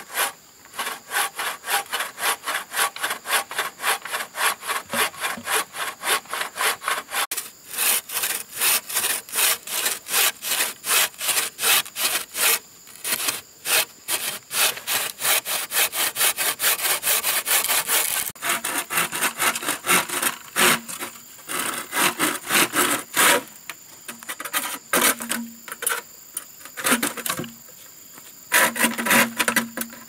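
Hand frame saw cutting through a wooden branch and a bamboo pole in quick, even back-and-forth strokes. The strokes break off in short pauses through the second half.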